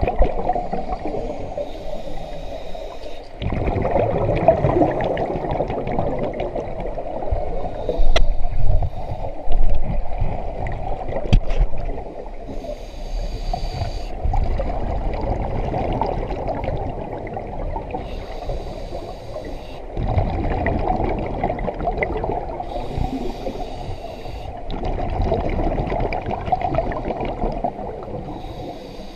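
Scuba diver breathing through a regulator underwater: slow breaths, each in-breath a high hiss through the demand valve and each out-breath a rumble of exhaust bubbles, repeating every few seconds.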